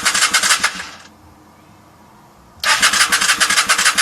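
The 1994 Honda Shadow VLX 600's electric starter cranking the V-twin in two bursts of rapid, even pulses. The first dies away about a second in and the second starts near the middle. The engine turns over but never fires: it won't start.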